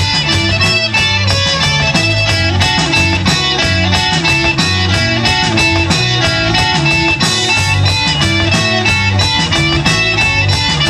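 Rock band playing live: distorted electric guitars over bass and drums, with a steady beat.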